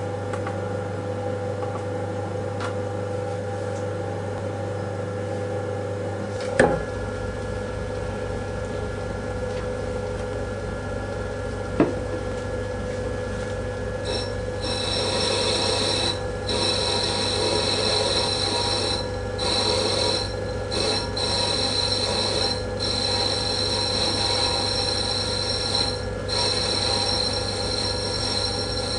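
Myford lathe running with a steady hum, with a sharp knock about a quarter of the way in and a click a little later. From about halfway on, the turning tool cuts metal in the spinning chuck with a high-pitched squealing whine that breaks off briefly several times.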